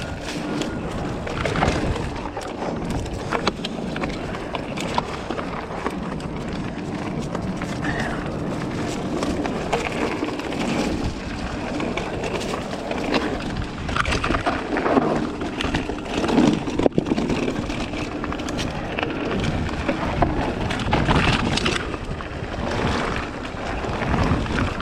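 Mountain bike descending a dry, loose dirt trail: tyres rumbling and crunching over dirt and small rocks, the bike rattling with frequent knocks over bumps, and wind rushing over the camera's microphone.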